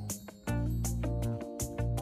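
Background music with a steady beat, deep bass and plucked-string melody.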